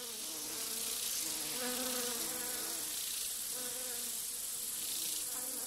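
Background soundtrack: a steady, high-pitched insect-like buzz over a soft, slow melody of held notes.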